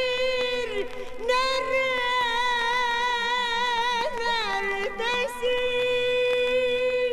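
Turkish art music in makam Segah playing from a vinyl LP: a melody line of long held notes with vibrato, sliding between pitches.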